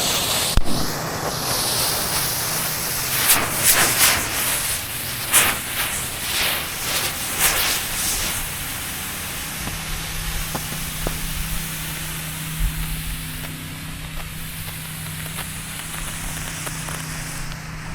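Neon smoke balls burning with a loud steady hiss, sputtering in bursts for the first several seconds, then settling to a softer hiss. A low steady hum comes in about halfway through.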